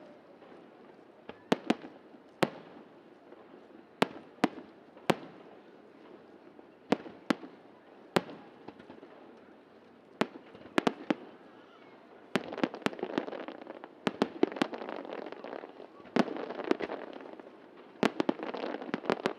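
Aerial firework shells bursting in a display finale: sharp bangs every second or so, often in quick pairs. The crackling between them thickens and gets louder about two thirds of the way in.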